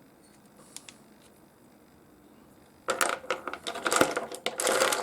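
Hard pieces of knobby opal rough clinking and clattering against each other as they are handled and sorted. A single faint click about a second in, then a dense run of loud, sharp clatters from about three seconds in.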